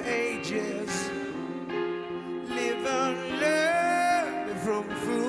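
Male rock vocalist singing a slow ballad live into a microphone over steady instrumental accompaniment, holding one long note about three and a half seconds in.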